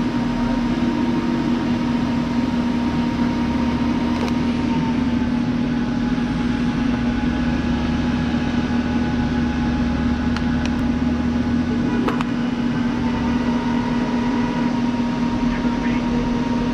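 Electric arc welder in use, laying a weld on steel: a steady loud hum with a dense crackling hiss that carries on unbroken.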